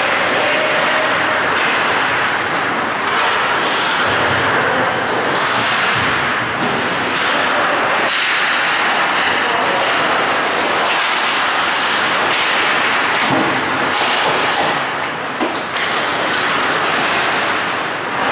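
Ice hockey play: skates scraping the ice, with scattered sharp knocks of sticks and puck over a steady rush of noise.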